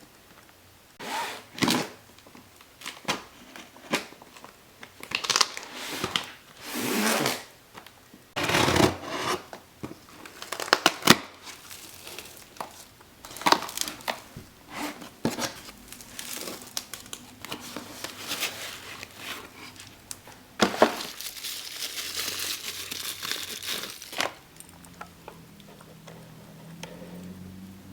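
Packaging being torn open and crinkled by hand in a series of short bursts, with a longer stretch of rustling near the end, as a parcel is unboxed.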